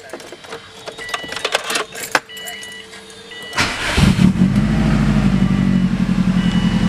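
Subaru WRX turbocharged flat-four, 2005, starting up after a new coil pack was fitted for a single-cylinder misfire: a few short beeps and small clicks, then the starter cranks briefly about three and a half seconds in and the engine catches, flares and settles into a steady, pulsing fast idle.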